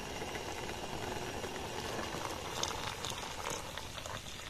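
A pot of tea bubbling as it boils, with a steady, fine bubbling.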